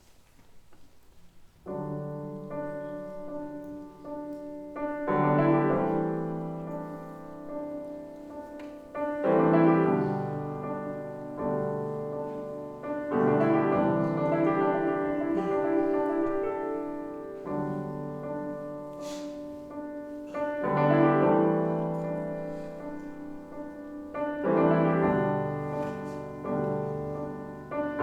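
Solo piano playing a song's slow introduction, with no voice. Chords are struck about every four seconds and let ring, starting a second or two in.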